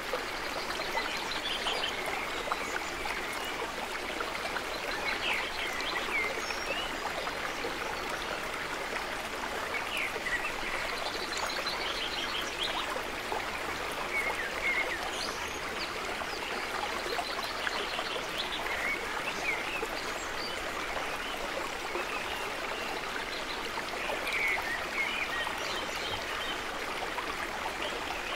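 Steady running-water noise with short chirping calls and quick trills recurring every few seconds over it.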